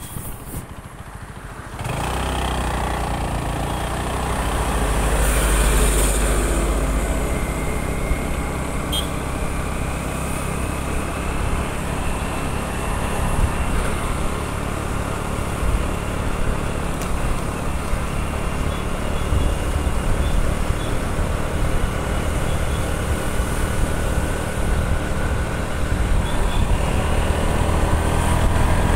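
A small motorbike's engine running steadily on the move, with wind buffeting the microphone. The sound steps up in loudness about two seconds in.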